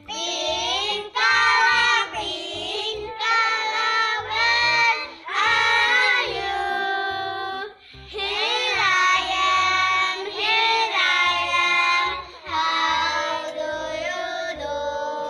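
A children's song: a child's voice singing over music with a steady beat, in phrases about a second long, with brief pauses about eight and twelve seconds in.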